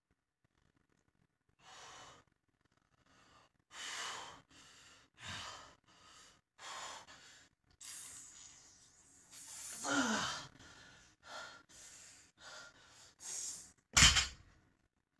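A man breathing hard through a set of heavy barbell deadlifts, with sharp exhales about once a second and one strained groan falling in pitch about ten seconds in. Near the end comes one loud thump as the iron-plate-loaded barbell is set down on the exercise mat, which is there to deaden the noise of the plates.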